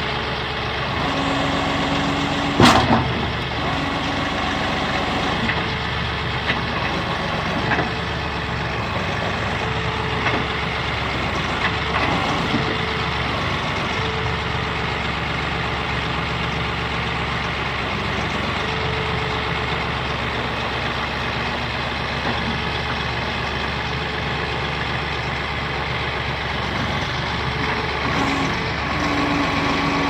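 Massey Ferguson 1736 compact tractor's diesel engine idling steadily while the Fisher plow blade is swung from side to side. Short steady whines start and stop several times, and there is one sharp clack about three seconds in.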